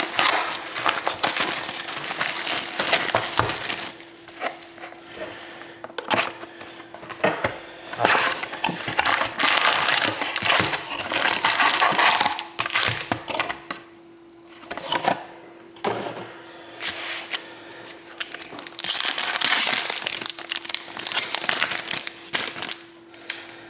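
Plastic wrapping crinkling and tearing in irregular bursts as a sealed box of trading-card packs is opened and the packs are unwrapped, over a faint steady hum.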